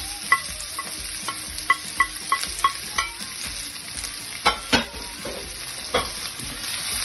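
Chopped onions and peppers sizzling in sunflower oil in a frying pan while a utensil stirs them, tapping against the pan about eight times in the first three seconds, then two louder knocks about four and a half seconds in and another near six seconds.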